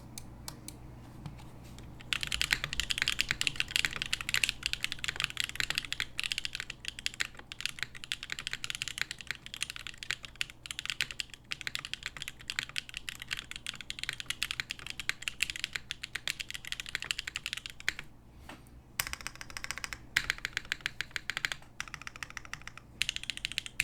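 Continuous typing on a Monokei x TGR 910 v2 ME keyboard with a carbon fiber plate, GMK keycaps and Sarokeys Strawberry Wine long-pole linear switches, which are pre-lubed and bottom out at 50 grams. The keystrokes give a snappy, high-pitched, full-sounding clack. Typing starts about two seconds in and stops briefly twice in the second half.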